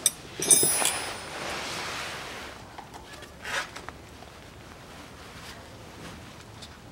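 Metal hand tools clink a few times with a short ringing tone, then rustling and a brief scrape as gloved hands work at the upper radiator hose clamp.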